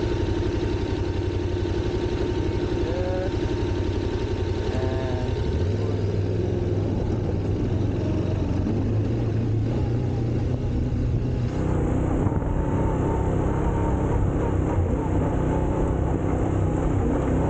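Motorcycle engine running while being ridden on a gravel road. The engine note shifts about five and a half seconds in, and again near the middle.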